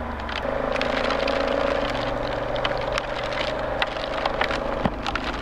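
Honda Africa Twin motorcycle engine running steadily under way. Its note steps up about half a second in and then holds. Scattered sharp taps of raindrops fall across it.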